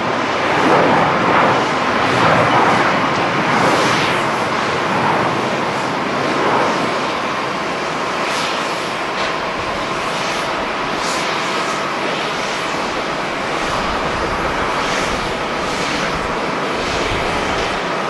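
Jet engines of a StarFlyer Airbus A320 as it rolls along the runway: a steady rushing jet noise that swells over the first few seconds and then holds level.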